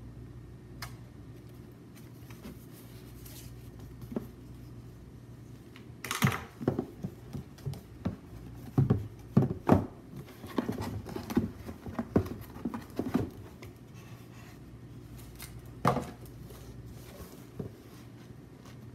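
Hands opening a rigid cardboard gift box: the satin ribbon is pulled off and the lid is lifted off, with a busy stretch of scrapes, rustles and light knocks of cardboard in the middle. A single sharper knock comes later. A steady low hum runs underneath.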